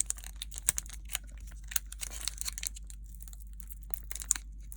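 Foil Pokémon booster pack wrapper crinkling and being torn at, a run of small sharp crackles as the pack is worked open.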